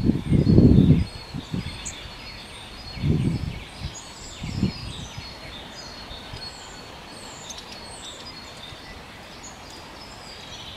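Thin, high chirps of small birds: many short falling notes throughout. Low rumbling bursts are the loudest sound, strongest in the first second and returning briefly twice a few seconds later.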